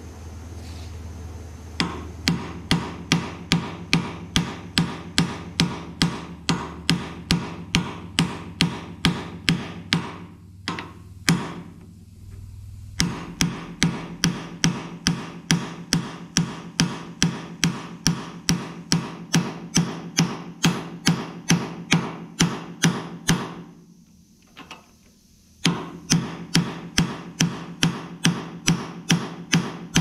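Hammer striking a steel bushing driver in a steady rhythm of about two to three blows a second, each with a short metallic ring, driving a new spindle bushing down into a tractor's cast front-axle spindle tube. The hammering pauses twice for a second or two.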